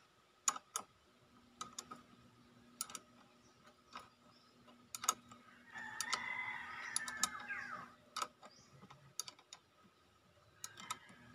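Scattered sharp metallic clicks of a combination wrench working the banjo bolt on a motorcycle's front brake master cylinder, cracking it loose with the brake lever taped down so fluid seeps out without letting air in. A rooster crows in the background about six seconds in.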